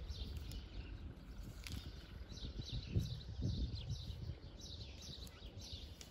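Small wild birds chirping again and again, each note a quick falling chirp, over soft low thuds as a hand pats down loose, freshly dug soil.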